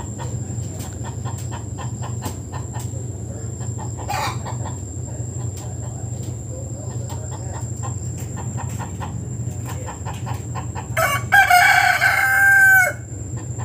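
Rooster crowing once near the end, a single cock-a-doodle-doo of about two seconds, over a steady low hum.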